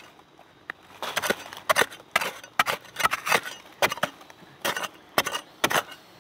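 A metal digging blade chopping repeatedly into dry, crumbly soil and roots, roughly two strikes a second, while digging out a June beetle's burrow.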